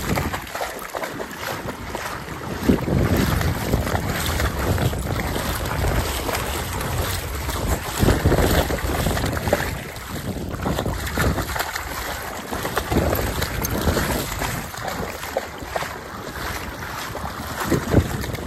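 Wind gusting on the microphone, with splashing as a small dog wades and trots through shallow water.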